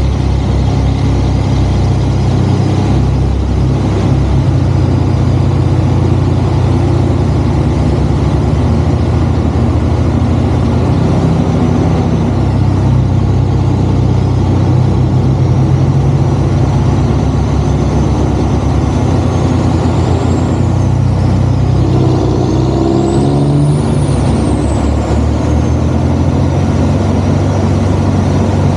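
Heavy truck diesel engine, a Cummins ISX in a Kenworth C500, running steadily and loud. A high thin whine glides up and falls back twice, about twenty and twenty-four seconds in.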